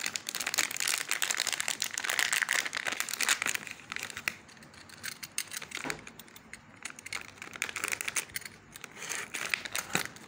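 Crinkling of a metallised anti-static plastic bag as it is handled and slit open with a snap-off utility knife. The crackling is busiest for the first few seconds, thins out in the middle and picks up again near the end.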